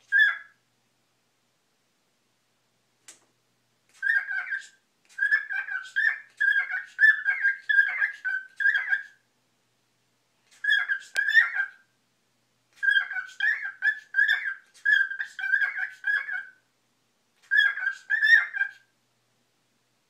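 Male cockatiel singing: one short call, then phrases of quick repeated whistled notes, several a second, broken by pauses of about a second.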